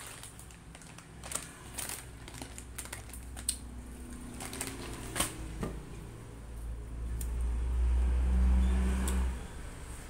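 Irregular clicks and taps of watermelon slices and rind being handled and broken at the table. Then a low rumble swells for about three seconds near the end and dies away.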